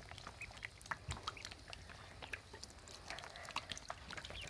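Ducklings faintly peeping and pecking, with many small soft clicks as they eat peas from the water and a hand.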